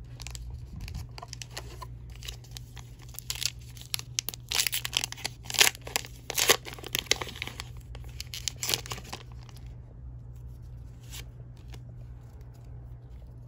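Foil wrapper of a Pokémon trading card booster pack being torn open and crinkled by hand: a run of sharp crackling tears, loudest in the middle, then a few last crinkles.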